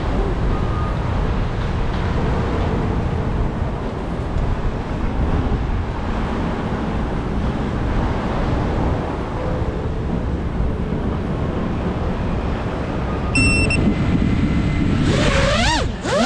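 Steady low rumble of wind and road traffic, with a short electronic beep about thirteen seconds in. Near the end an FPV quadcopter's brushless motors spin up into a loud whine that sweeps up and down in pitch as the drone takes off.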